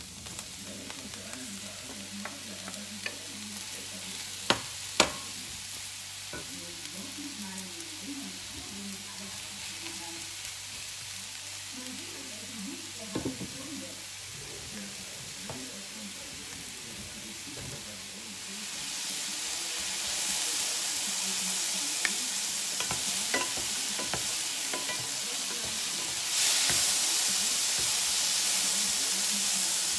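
Sliced brown and white button mushrooms sizzling in a hot non-stick frying pan and being stirred with a wooden spatula. The frying hiss gets louder about two-thirds of the way through and again near the end. Two sharp knocks come about five seconds in.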